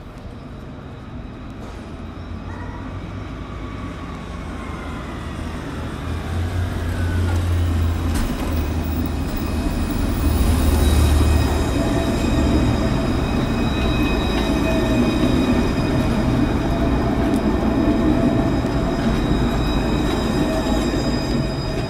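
Alstom Citadis low-floor tram passing close by: a steady rumble of wheels on rails with a motor whine. The sound grows louder over the first half and stays loud. A falling whine comes a few seconds in, and steady high-pitched tones ring from about the middle on.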